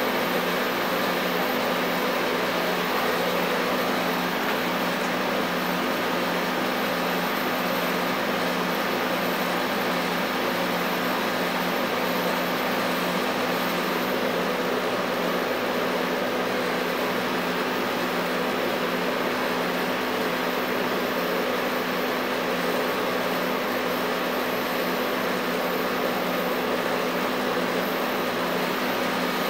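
LG LHD659BL dehumidifier running with its housing off: its fan and compressor give a steady hum with a constant rush of air.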